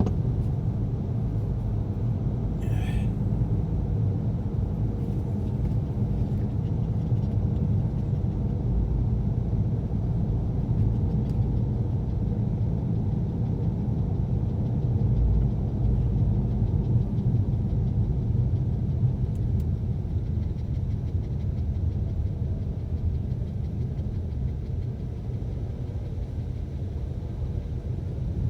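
Steady low rumble of road and engine noise inside a moving car's cabin, with a brief faint high sound about three seconds in.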